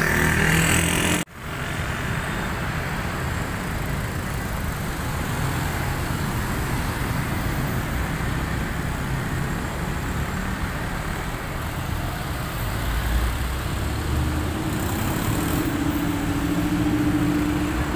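Steady street traffic noise of cars, minibuses and motorbikes passing, with a vehicle engine's drone rising slightly near the end.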